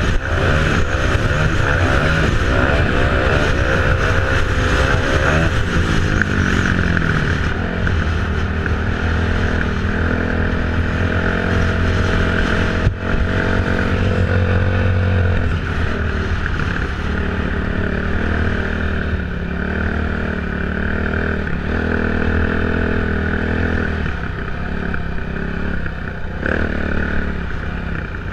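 2008 Yamaha YZ450F's single-cylinder four-stroke engine running under way through sand, its pitch rising and falling with the throttle, heard from a helmet-mounted camera with wind noise. The engine eases off near the end.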